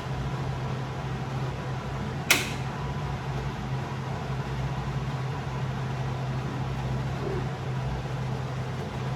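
Kitchen extractor hood fan running with a steady hum. About two seconds in there is a single sharp knock.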